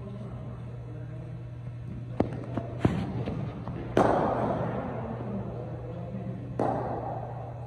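Cricket bat striking a hard cricket ball with a sharp crack that echoes round a large indoor hall, about four seconds in. A few lighter knocks come before it, and another echoing knock follows near the end.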